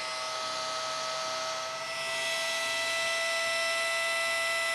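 Electric inflation pump, powered off a vehicle's battery, running steadily with a high motor whine and rushing air as it blows up a pontoon boat tube. The air rush grows brighter and slightly louder about two seconds in.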